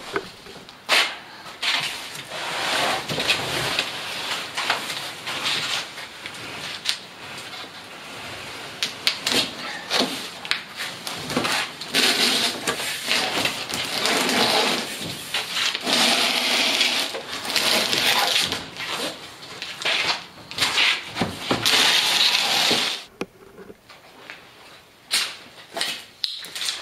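A heavy cardboard box holding a portable generator is slid and handled, scraping and bumping, with scattered knocks. The noise quietens near the end.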